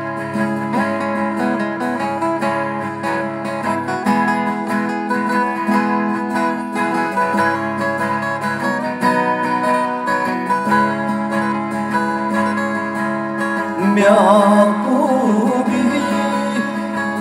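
Several acoustic guitars strumming an instrumental break in a slow song, the chords changing every few seconds. A singing voice comes back in about three seconds before the end.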